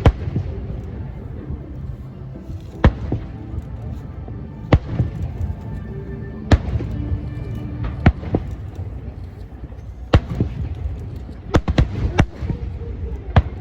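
Fireworks shells bursting: sharp bangs about every two seconds, with a quick run of several bangs near the end, over a steady low rumble.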